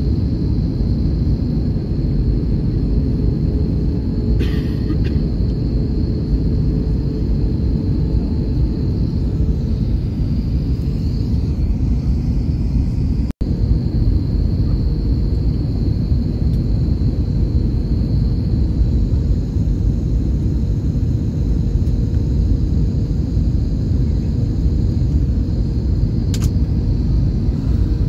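Airbus A321 cabin noise on approach: a steady low rumble of engines and airflow with a faint steady whine above it. The sound cuts out for a split second about halfway.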